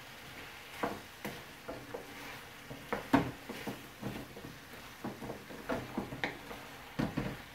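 Wooden spoon stirring chunks of beef and vegetables in a frying pan, with irregular scrapes and knocks against the pan, the loudest about three seconds in, over a faint sizzle of the food frying.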